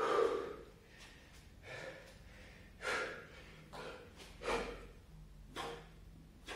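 A man breathing hard from exertion during burpees with push-ups: a string of about six sharp, forceful breaths, the loudest right at the start.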